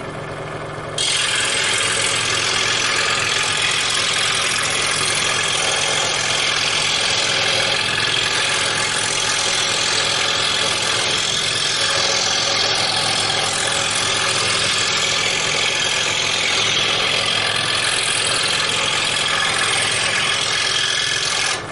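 20-inch Delta scroll saw running steadily, its reciprocating blade cutting a shape out of a thin wooden board. The motor hum is there from the start, the cutting noise joins about a second in, and the saw cuts off suddenly at the end.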